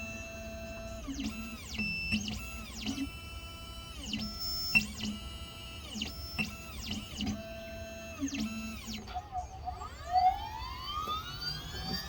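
Xhorse Dolphin XP005 key cutting machine moving into position: its stepper motors give a series of short pitched whines that slide down in pitch, about once a second. Near the end a motor spins up with a rising whine.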